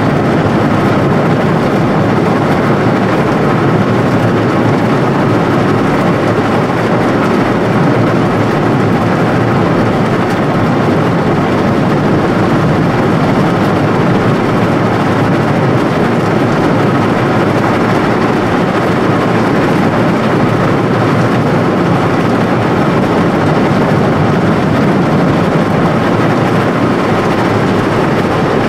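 Automatic car wash machinery heard from inside the car: a steady, loud rushing noise.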